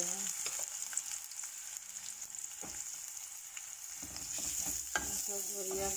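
Chopped onions sizzling in hot oil in a metal kadai, stirred with a wooden spatula that scrapes the pan now and then.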